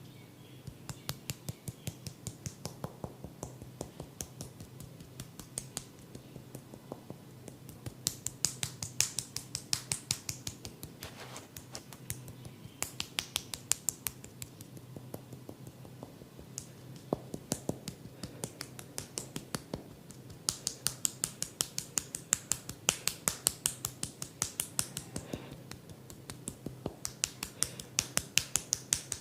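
Runs of sharp, crisp snapping clicks, several a second with short pauses between runs, made by a barber's hands working the head during an Indian head massage.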